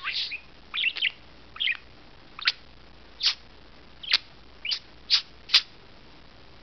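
Pet parakeet giving a string of short, sharp chirps: a few quick rough ones, then single calls about every half second, stopping near the end.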